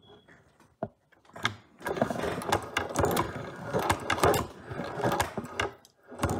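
Hand-cranked Chinese leather shoe patcher sewing machine being run: its needle and walking foot mechanism clatter and click. After a couple of single clicks, the clatter starts about two seconds in and stops near the end.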